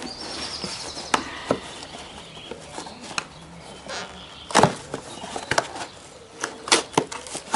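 Cardboard box being handled and its end flap pried and torn open by hand: scattered knocks and scraping rustles, with a cluster of sharper cardboard knocks in the second half.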